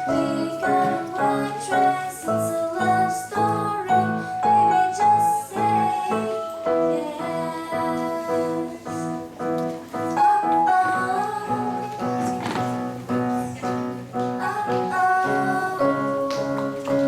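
Background music: a song with a singing voice over evenly repeated keyboard chords.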